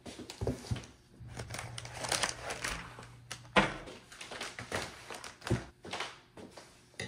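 Cardboard box and brown paper mailers handled and set down on a table: paper rustling and crinkling with several knocks, the loudest a sharp thump about three and a half seconds in.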